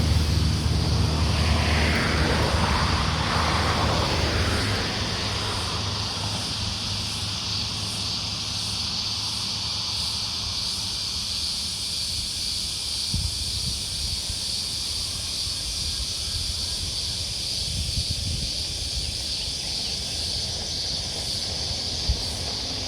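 A vehicle passes on a country road and fades away over the first few seconds. Then comes a steady high-pitched chirring with a faint regular pulse, over a low wind rumble.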